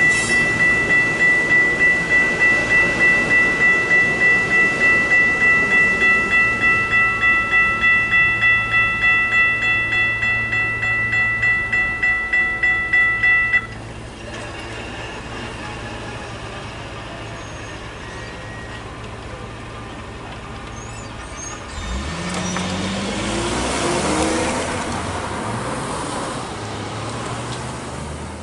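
Railroad crossing warning bell ringing in a rapid steady pulse while a commuter train rolls through the crossing, then cutting off about halfway through as the crossing clears. After that comes lighter road traffic, with a car pulling through near the end.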